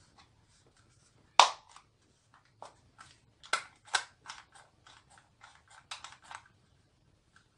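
Irregular sharp plastic clicks and knocks from a hot glue gun's plastic housing and trigger being handled and pressed together, the loudest about one and a half seconds in.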